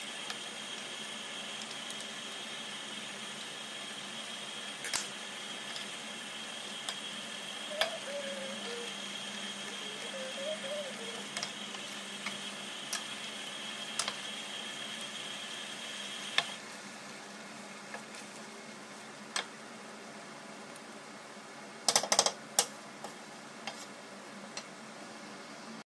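Curry simmering in a pan on a gas hob, a steady hiss, with scattered sharp clicks and taps of a wooden spoon against the pan as it is stirred. The hiss drops a little past halfway, and a quick cluster of clicks comes near the end.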